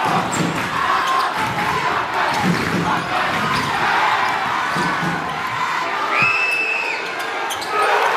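Basketball game in a gym: the ball dribbling on a hardwood court amid crowd voices and shoe noise. A short, steady high tone sounds about six seconds in, and the crowd gets louder near the end.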